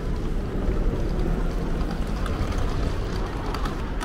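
Steady low rumble of city street ambience with road traffic.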